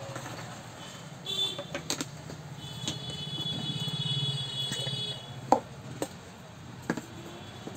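Handling knocks as a plastic mixer-grinder motor base is set on a table and a stainless-steel jar is picked up, a few separate knocks with the sharpest about five and a half seconds in, over a steady low hum. A high steady tone sounds for a couple of seconds in the middle.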